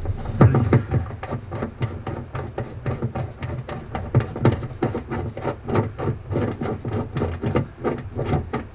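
Hand riv nut tool being squeezed over and over, an irregular run of clicks and creaks as a threaded insert is crimped into the car's sheet-metal panel.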